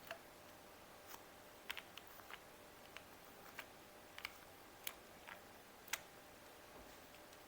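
Single keystrokes on a Monsgeek M1 aluminium mechanical keyboard fitted with lubed Gateron Black Ink V2 switches and cherry-profile keycaps: about a dozen separate key presses, spaced irregularly, each a short sharp click.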